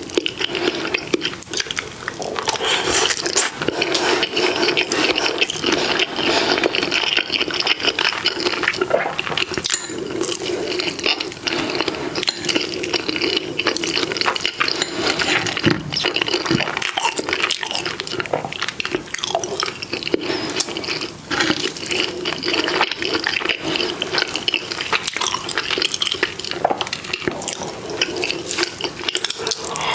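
Close-up wet eating sounds from a mukbang of saucy Korean food: dense, continuous smacking and squelching chewing with many small wet clicks.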